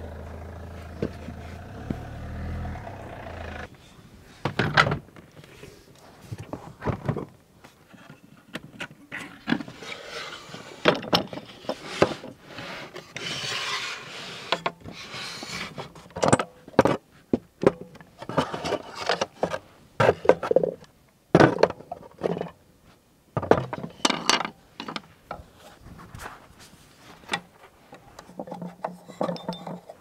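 Wooden camp kitchen organiser being set up by hand: wooden parts knock, scrape and rattle, and jars are set down on its shelves, in an irregular run of sharp knocks and taps with short scrapes. A low steady hum fills the first few seconds before the knocking starts.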